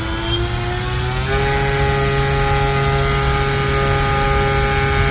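Brushless electric motor spinning an 11-inch 3D-printed propeller on a thrust test stand: a steady whine over the rush of the prop's wash. About a second in the pitch rises as the throttle goes from three-quarter to full power, then holds steady.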